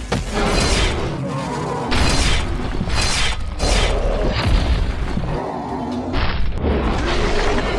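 Cartoon fight sound effects: a run of heavy booms and crashing impacts as bodies slam into the ground, with music underneath.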